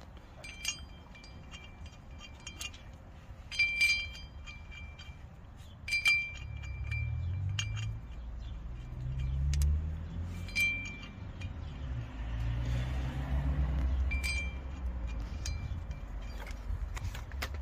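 Steel bolts clinking and ringing against a new steel wheel bearing hub and brake disc as they are fitted by hand, about five separate ringing clinks. A low rumble runs under the second half.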